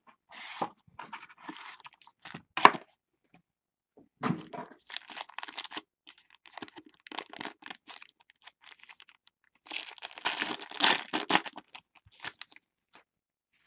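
Foil trading-card pack crinkling as it is handled and then torn open, with the loudest tearing and rustling about ten seconds in. A single sharp click comes about two and a half seconds in.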